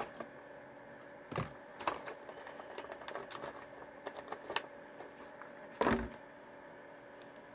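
Packaging of a small bobblehead figure being opened and handled by hand: scattered light clicks, crinkles and rustles, with a louder knock about a second and a half in and a thump near six seconds in.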